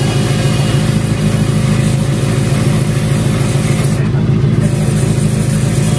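Pressure washer running steadily while spraying a motorcycle, a constant deep motor-and-pump hum.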